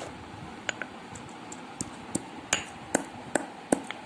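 Pestle knocking in a stone mortar, pounding whole spices: cardamom pods, cinnamon and shahi jeera (black cumin). Sharp knocks come about two to three a second with a short ring, louder from about halfway.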